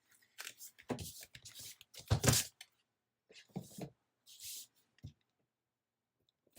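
Handling noises of crafting supplies: rustling paper and sticker sheets with a few knocks on the tabletop, the loudest about two seconds in, and a short hiss and a click near the end.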